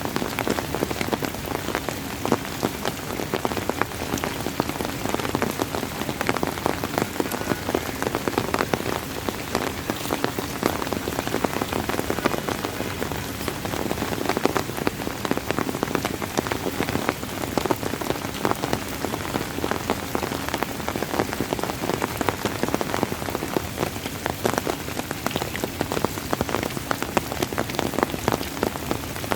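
Steady rain falling on a surface, a dense patter of many small drop ticks over an even hiss.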